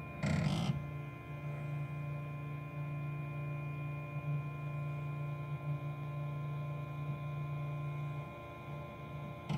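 Flashforge 3D printer running with a steady low hum, with a short noise about half a second in. The low hum drops away near the end.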